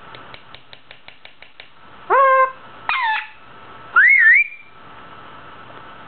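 Indian ringneck parakeet at its mirror: a quick run of about a dozen clicks, then two short rising calls and a wavering whistled note about four seconds in.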